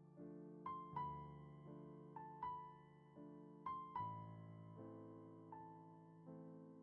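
Soft background piano music: a slow melody of single struck notes over sustained chords, each note fading away.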